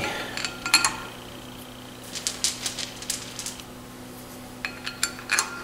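Light metal clicks and clinks as a steel flywheel and its bolts are fitted against a diesel engine's crankshaft flange, trying whether the bolt holes line up; they come in three short clusters over a steady low hum.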